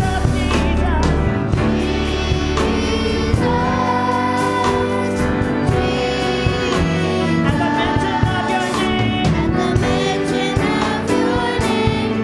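Gospel choir singing with instrumental backing and regular percussion hits.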